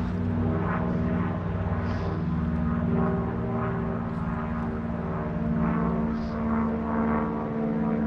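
Propeller airplane engine droning steadily.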